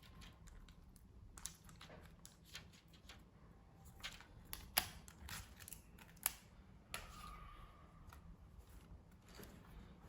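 Faint scattered clicks, taps and a short scrape of small tools and plastic laptop parts being handled during disassembly, with two sharper clicks about five and six seconds in.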